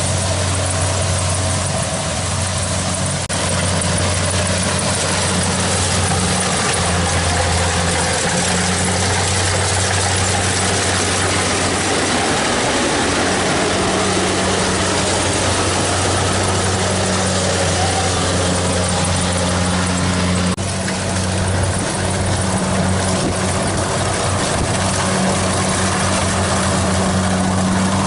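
Kubota DC70 Plus rice combine harvester's diesel engine running steadily, with a dense mechanical hiss over the hum. There is a short break about twenty seconds in, after which the engine note shifts a little.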